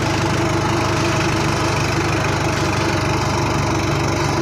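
Tractor diesel engine running steadily under heavy load, with an even firing rhythm, as it climbs a ghat road in third gear. The tractor is heavily laden and barely pulling in that gear.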